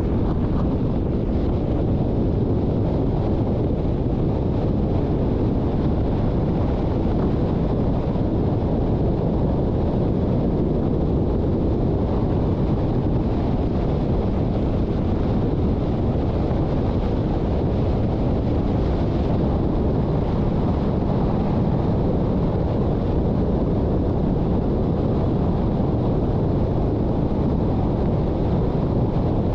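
Steady low rumble of road and wind noise from a car driving.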